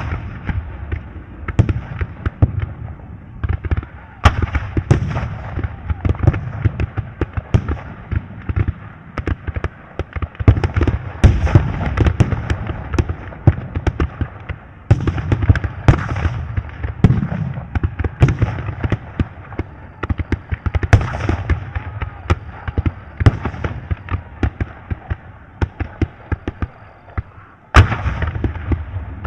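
War battle ambience sound effect: dense, continuous gunfire cracks over heavy low booms of explosions. A short lull just before the end is broken by a loud blast.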